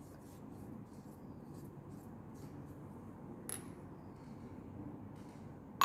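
Faint scratchy rubbing of a paraffin-soaked cotton pad over a metal suppository mould, in repeated short strokes, with a light click about three and a half seconds in and a sharper click at the very end.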